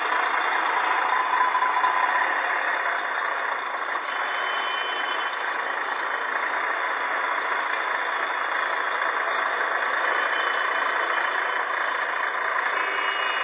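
Steady vehicle engine and road noise: an even rush with no clear horn or pitched tone standing out.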